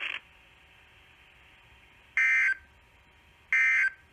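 Emergency Alert System end-of-message code sent over NOAA Weather Radio: two short, harsh digital data bursts, each under half a second and about 1.4 s apart, marking the close of the tornado drill alert. They come after about two seconds of faint hiss.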